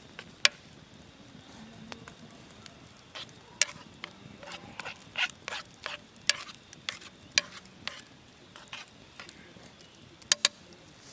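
Campfire cooking: irregular sharp crackles and pops over a faint hiss, the loudest pops about half a second in and a close pair near the end.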